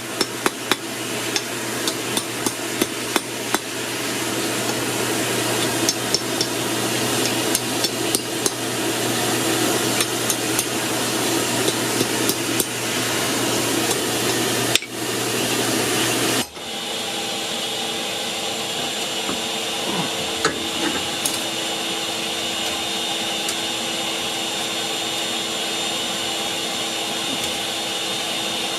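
Hand hammer striking hot 1/4-inch steel bar stock, about two blows a second, to flatten it, over a steady whirring air blower. The hammering stops about sixteen seconds in, leaving the blower's steady whir.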